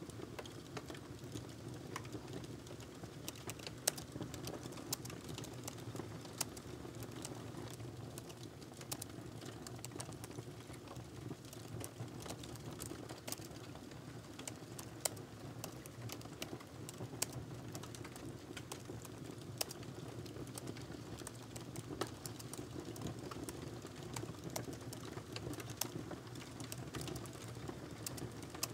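Typing on a laptop keyboard: quick, irregular soft key clicks in runs, with brief pauses between bursts.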